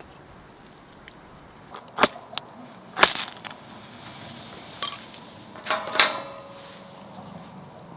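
Metal camping gear being handled: a handful of separate clanks and knocks, the last two ringing briefly as struck metal.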